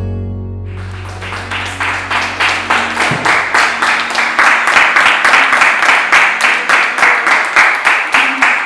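A small audience applauding as the music's last low note dies away. The clapping builds up and settles into a steady rhythm of about three claps a second.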